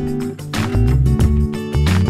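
Background music with guitar over a strong bass line.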